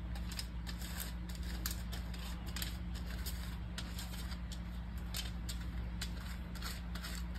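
Silicone pastry brush dabbing and spreading oil over aluminium foil wrapped on a pan lid, making light crinkly taps and brushing strokes over a steady low hum.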